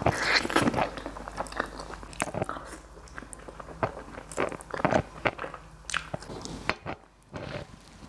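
Close-miked eating: a person biting and chewing, with many irregular wet crunches and smacks. There is a short lull about seven seconds in.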